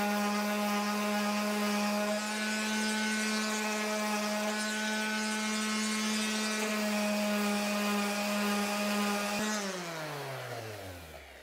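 Electric random orbital sander running steadily on a wooden rocker part, cleaning up the scorched surface of a deep laser-engraved logo. It is switched off about nine and a half seconds in and winds down with a falling hum.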